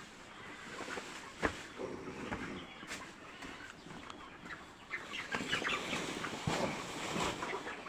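A flock of chickens clucking inside a poultry house, many short overlapping calls that grow busier after about five seconds. One sharp knock about a second and a half in.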